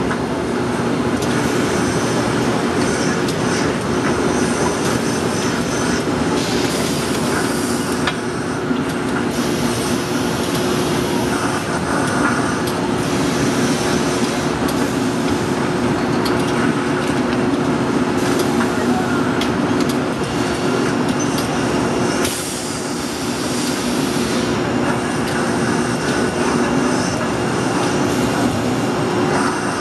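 Automatic steam shirt-ironing machinery running: a steady loud hum with a constant low tone, and hissing that comes and goes several times.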